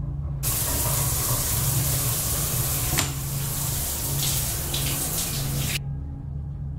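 Shower water spraying steadily, starting suddenly about half a second in and cutting off abruptly near the end, over a low droning music score.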